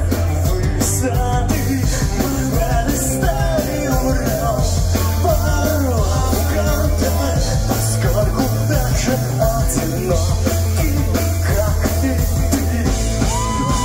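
Pop-punk band playing loud live music in a club, with drums, bass and electric guitars.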